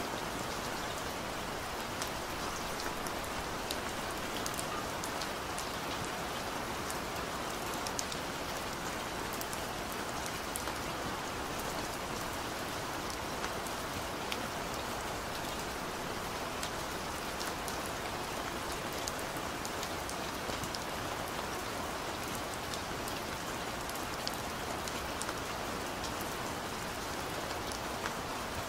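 Steady rain falling, an even hiss with many scattered sharp drop ticks, unchanging throughout.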